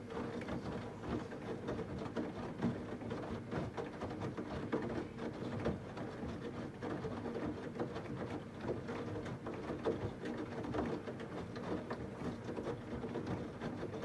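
Samsung WD90K6B10OW washer-dryer running a wash cycle: a steady motor hum under many small irregular knocks from the tumbling drum and load.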